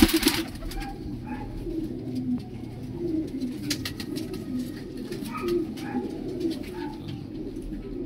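Domestic pigeons cooing, many at once, a steady low murmur of overlapping coos, with a brief burst of noise at the very start.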